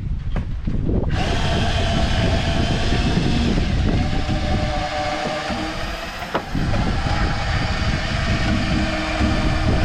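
Warn portable drill winch driven by a cordless drill, the drill motor and winch gearing whining steadily as the cable hauls a wood chipper under load. It starts about a second in and drops slightly in pitch for a while in the middle, with wind rumbling on the microphone.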